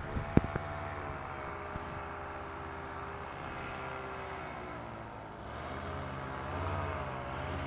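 Paramotor engine and propeller droning as the powered paraglider comes in to land. The pitch is steady at first, then wavers up and down over the last couple of seconds. A single sharp knock sounds about half a second in.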